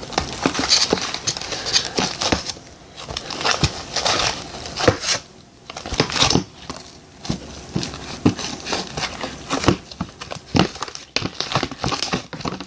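Clear glue slime being kneaded and stretched by hand, giving irregular sticky clicks and crackles with short pauses between handfuls.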